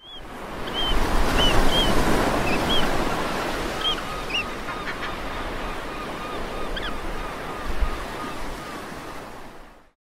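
Surf breaking and washing up a beach in a steady rush, with short chirping bird calls scattered through it and a quick run of lower calls a few seconds in. It fades out at the end.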